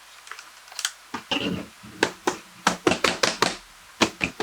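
A rapid run of sharp taps and knocks from hands handling hard objects, about a dozen strikes beginning about a second in, the loudest clustered in the middle, with a few more near the end.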